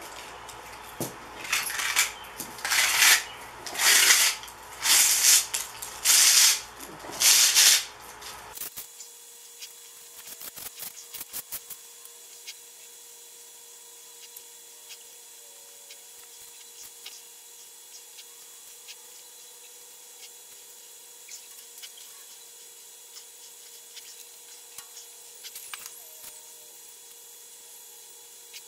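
Copper wire being pulled and scraped off the tar-potted coil of a sign ballast: a run of loud rasping scrapes about a second apart, then, after a sudden drop about nine seconds in, only faint clicks and rustles of the wire being handled.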